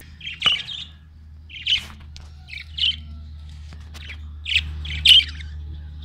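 Budgerigars calling: five short, harsh chirps about a second apart, over a low steady hum.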